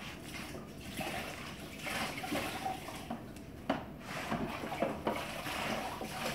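Damp sponge wiping across grouted floor tile in repeated wet swishes, with a few light knocks, cleaning off Fusion Pro grout haze.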